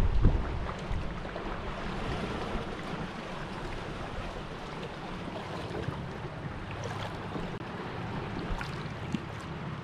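Lagoon water lapping and trickling against a moving kayak's hull, with wind rumbling on the microphone briefly at the start.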